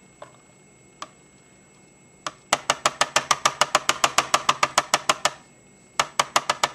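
Ink pad dabbed onto a rubber stamp to ink it up: a few single light taps, then a quick, even run of about eight or nine taps a second for nearly three seconds, and a short run of about five more near the end.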